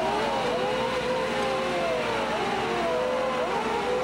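Steel sector gate of the New Bedford hurricane barrier moving through the water: overlapping whining squeals that keep sliding up and down in pitch over a steady rushing noise.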